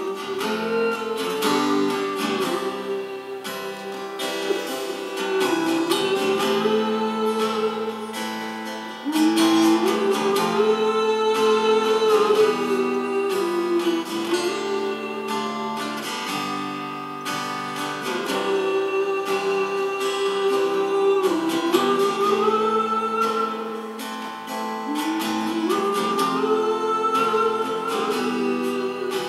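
Live song: a man singing a wordless melody over strummed acoustic guitar. The same rising-and-falling phrase comes round about four times.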